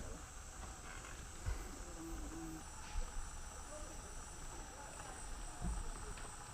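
Rainforest insects, crickets or cicadas, droning steadily in a high-pitched chorus. A few low thumps break in.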